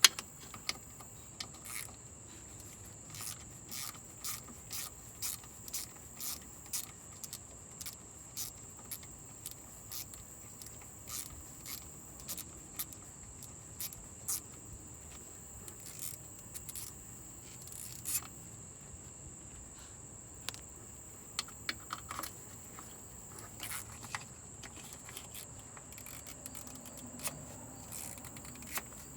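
Irregular metallic clicking of a hand ratchet working the transmission pan bolts loose, in short runs with pauses. A steady high-pitched insect drone runs underneath.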